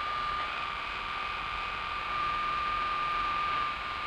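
Electrical laboratory apparatus giving a single steady high-pitched tone over a hiss.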